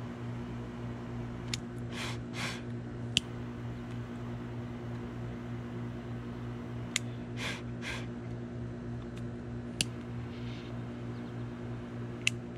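Steady low electrical hum, like a fan or appliance, broken by a few sharp clicks and by two pairs of short breathy puffs of noise.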